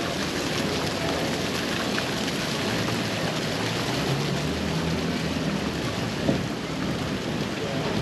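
Steady outdoor street ambience on a pedestrian mall, dominated by an even hiss, with one short knock about six seconds in.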